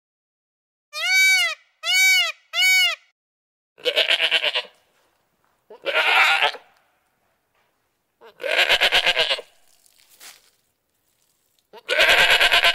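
Indian peafowl giving three short calls in quick succession, each rising and falling in pitch. Then goats bleating four times, a few seconds apart, each bleat quavering.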